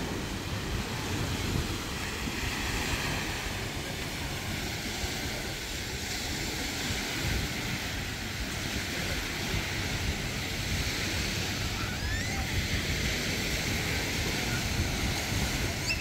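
Small waves washing onto a sandy beach, with wind buffeting the microphone. Faint distant voices of beachgoers and a few short high calls near the end.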